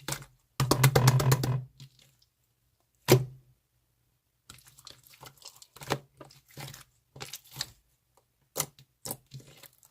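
Slime being squeezed and poked by hand: a dense run of crackling clicks about a second in, one sharp snap near three seconds, then scattered small pops and clicks.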